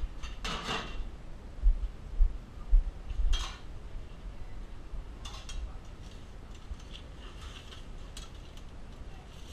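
Metal cookware and utensils being handled: a few sharp clinks and clatters in the first few seconds, with dull thumps among them, then scattered light clicks and taps.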